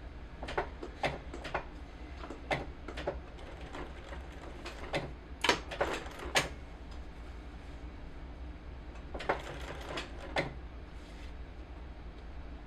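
Irregular sharp clicks and taps of hands working at a sewing machine, a few at a time with pauses between, over a steady low hum. There is no steady run of stitching.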